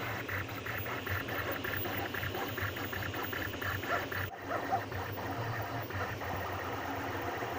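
Anycubic Kossel delta 3D printer printing, its stepper motors whirring in quick bursts with short high chirps as the print head changes direction, over a steady low hum. The sound breaks off suddenly about four seconds in and carries on more evenly.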